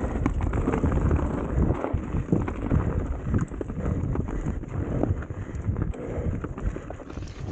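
Enduro mountain bike descending a snowy trail: wind buffeting the microphone over a low rumble from the tyres, with many quick rattles and knocks from the bike.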